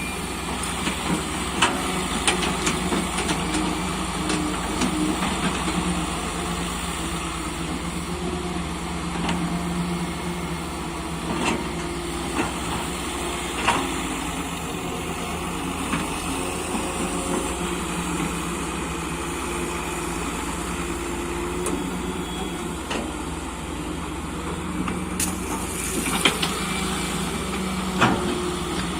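Excavator's diesel engine running steadily, with scattered knocks and clanks; a few louder ones come near the end.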